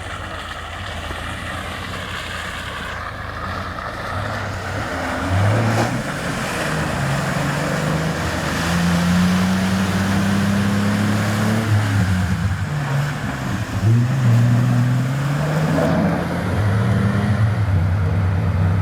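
Vehicle engine revving hard, its pitch climbing and dropping again several times, as it ploughs through deep water-filled ruts, with a steady churning and splashing of water and mud.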